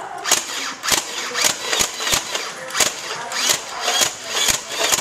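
NERF Vulcan EBF-25 belt-fed foam-dart blaster firing a rapid string of shots, sharp clicks about two to three a second.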